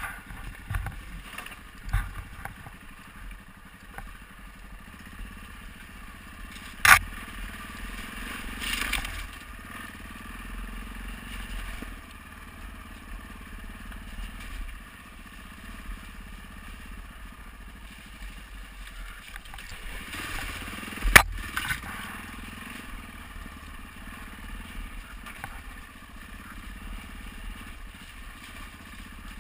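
Dual-sport motorcycle engine running at low revs while the bike picks its way over a rough, rocky dirt track, with gravel crunching under the tyres. There are two sharp knocks, one about seven seconds in and a louder one about twenty-one seconds in.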